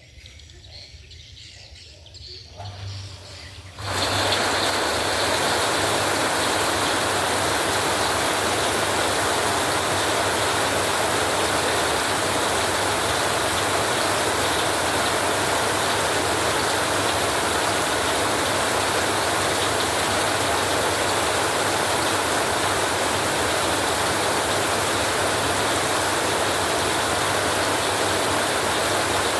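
Heavy rain falling on a metal roof with storm wind: a dense, steady hiss that starts abruptly about four seconds in and holds even. Before it, only faint quiet background sounds.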